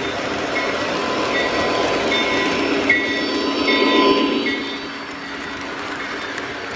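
Lionel O-gauge model train rolling past on the layout track: the diesel locomotive and freight cars make a steady rolling rumble that swells as the locomotive passes closest, about four seconds in, then eases as the cars go by. A single sharp click comes just before the peak.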